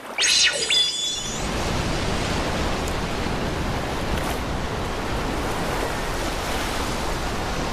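Stormy sea sound effect: steady rushing surf and waves, opened by a short bright shimmering whoosh in the first second.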